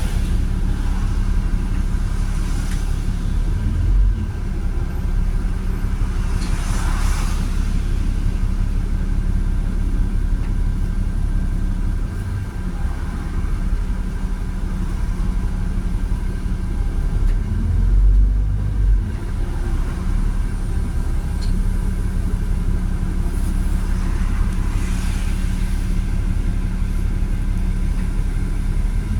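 Volvo B7RLE single-deck bus with a Voith automatic gearbox, its diesel engine and drivetrain running on the road, heard from on board. There is a steady low rumble with faint steady high tones above it, and a slight easing of the engine noise about twelve seconds in.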